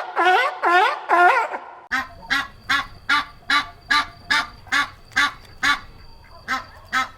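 Animal calls from two recordings. First comes a run of loud calls, each sweeping upward in pitch. About two seconds in, this gives way to short, evenly repeated calls about two and a half a second, over a faint steady high tone.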